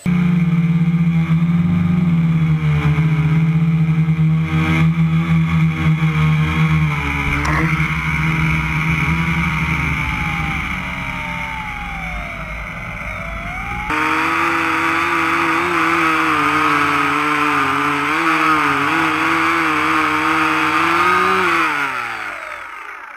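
Electric motor and propeller of a radio-controlled BoxCopter boat running under power: a loud, steady pitched drone whose pitch wavers up and down with the throttle. The sound changes abruptly a little past halfway, and near the end the pitch slides down and the drone fades away as the throttle is cut.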